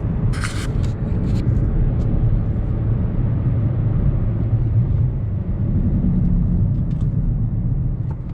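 A 2018 Mazda3 being driven: steady low engine and road rumble, with one brief hiss about half a second in.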